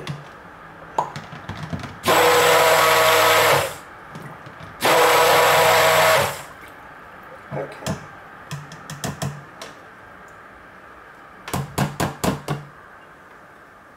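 A Cuisinart Smart Stick immersion blender runs in two short pulses of about a second and a half each in cold process soap batter, bringing the oils and lye solution to an emulsion short of trace. Several light knocks and taps follow.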